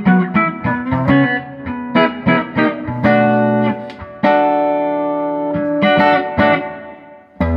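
Electric guitar played through an optical compressor pedal. A run of quick picked notes gives way to held chords that ring out and fade, with a fresh chord struck near the end.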